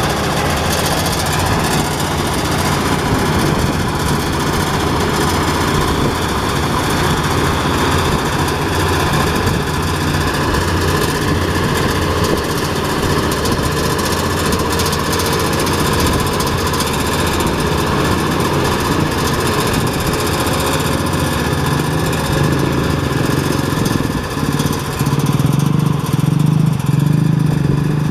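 Power rice thresher running steadily, its threshing drum driven by a Kubota RD 65 DI 6.5 HP single-cylinder diesel engine, as bundles of rice stalks are fed into it. Near the end the low engine hum grows louder and heavier.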